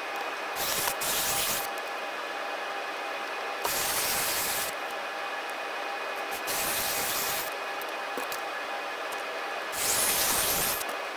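Four short hissing blasts of spray or air, each about a second long, used to clean the impact driver's parts during maintenance.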